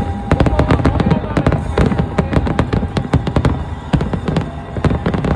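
Fireworks going off in a rapid barrage of bangs and cracks, several a second, with music and a steady held tone behind them.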